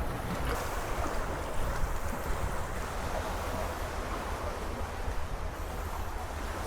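Seaside ambience: small waves washing on the shore under a steady low rumble of wind on the microphone.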